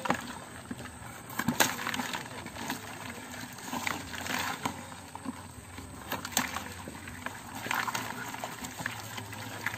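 Live crabs clattering in a plastic bucket as a hand rummages among them: shells and claws click and scrape against each other and the bucket wall, with irregular sharp clicks and rustles.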